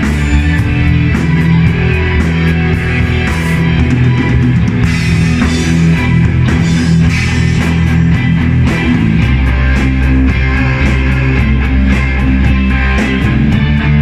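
A live rock band playing a song together: drum kit with cymbals keeping a steady beat, electric bass, electric guitars and keyboard, loud and without a pause.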